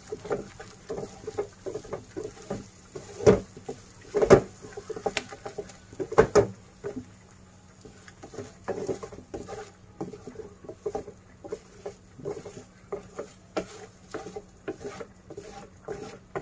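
Wooden spatula stirring and scraping eggs scrambling in oil in a non-stick kadhai, knocking against the pan. There are three sharper knocks about three, four and six seconds in, then lighter irregular taps and scrapes.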